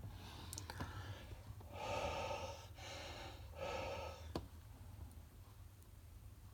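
A man breathing out hard twice, close to the microphone, onto a humidity sensor to raise the humidity it reads. A single sharp click follows just after the second breath.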